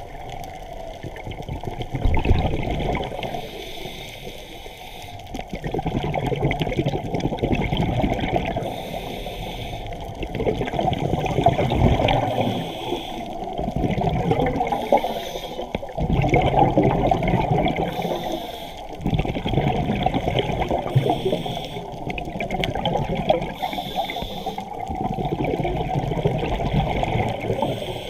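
Water rushing and bubbling, heard underwater, swelling and easing every three to four seconds.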